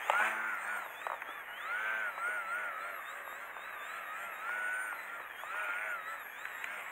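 Small electric RC biplane's brushless outrunner motor (SunnySky X2204, 1800 KV) and propeller whining, the pitch rising and falling in quick repeated swells as the throttle is worked to hold the plane hanging nose-up in a hover.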